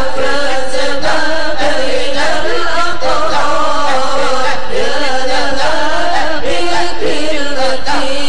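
A congregation chanting a sholawat, an Islamic devotional song in Arabic, on a continuous melodic line with long, gliding notes.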